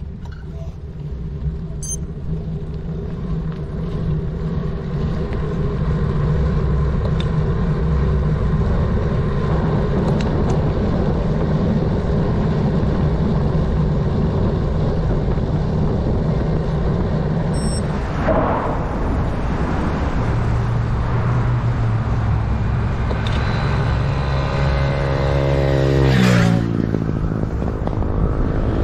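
Steady low rumble of a moving bicycle ride, wind and road noise on the microphone, building over the first few seconds. Near the end a pitched whine rises for about two seconds, then breaks off.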